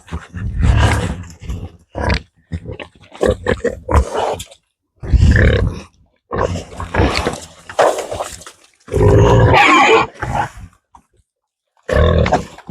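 Farm animals grunting in short, irregular bursts with brief silent gaps between them.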